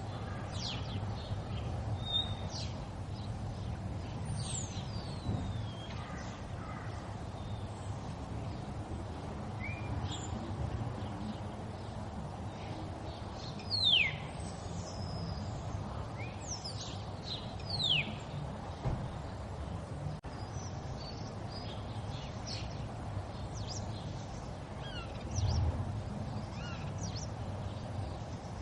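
River water running steadily, with birds calling over it in short, high chirps that slide downward in pitch, the loudest about halfway through and again a few seconds later.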